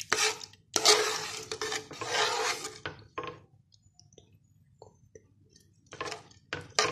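A metal ladle stirring and scraping through rice and water in a metal pressure cooker. There is about two seconds of scraping, a quiet pause of nearly three seconds, then a few short scrapes near the end.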